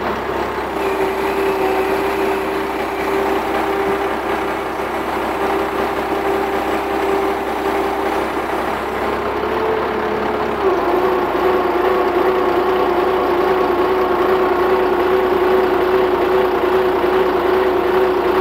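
Diesel engine of a 20-ton hydraulic mobile crane running steadily while the crane lowers a suspended load, with a steady whining tone that shifts pitch about ten seconds in.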